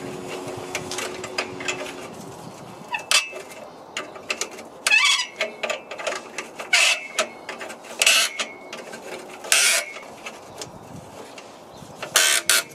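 Ratchet spanner undoing the 13 mm bolts on a rusty exhaust coupling under a car: short bursts of ratchet clicking every second or two, coming quicker near the end.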